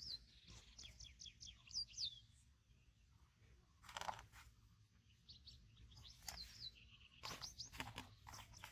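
Small birds chirping in quick runs of short, falling high notes, twice, with a few sharp clicks or rustles in between.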